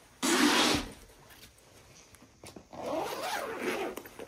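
Zipper of a fabric soft rifle case being pulled open in two runs: a short, loud rasp near the start and a longer rasp from about three seconds in whose pitch rises and falls as the pull speeds up and slows.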